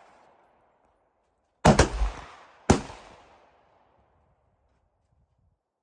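Three gunshots: two in quick succession about a second and a half in, then a third a second later, each with a trailing echo.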